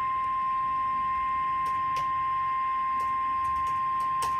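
NOAA Weather Radio 1050 Hz warning alarm tone, received on a radio: one steady, unbroken tone that signals a warning is about to be read. A few faint clicks sit under the tone.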